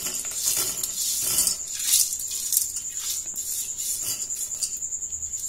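Fried boondi (small crisp gram-flour pearls) tipped and brushed off a perforated steel strainer into a steel bowl of sugar syrup: scattered light clicks and patters of the pellets landing on steel, with an occasional tap of metal on metal.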